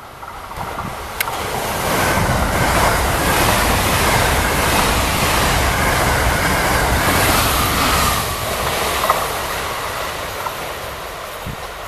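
A 9-car JR West 683 series 4000 subseries express electric train passes at high speed. Its rushing wheel-and-air noise builds over about two seconds, holds steady for several seconds, then slowly fades as the train goes away.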